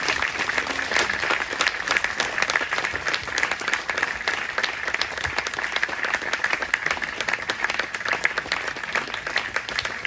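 Audience applauding steadily, many hands clapping.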